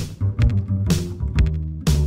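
Runway music with a deep, prominent bass line and a steady beat: sharp hits about once a second with lighter clicks between them.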